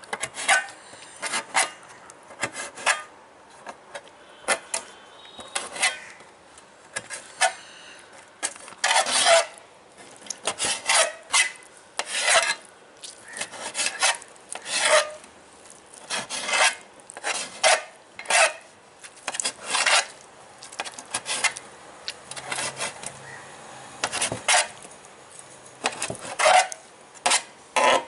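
Kitchen knife cutting boiled goat intestine on a metal plate: the blade taps and scrapes against the metal in irregular strokes, about one or two a second.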